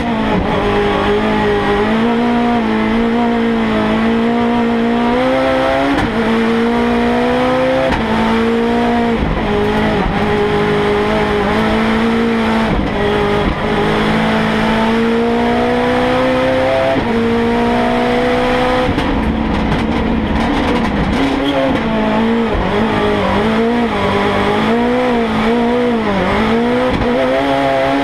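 Ford Fiesta hillclimb race car's engine at high revs, heard from inside the cabin. Through the first part it pulls up through the gears, with the revs climbing and then dropping sharply at each upshift. Near the end the revs fall and rise in quick dips as it shifts back down.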